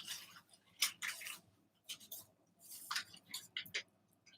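A package being handled and opened: short, irregular rustling and crinkling of packaging.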